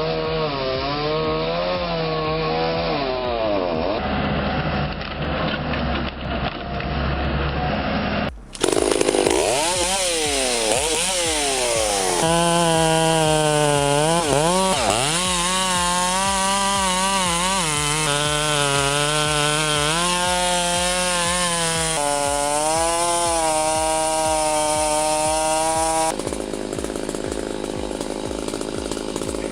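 Chainsaw engine running and revving, its pitch rising and falling again and again as it works into wood. About eight seconds in the sound breaks off and a louder, brighter saw takes over.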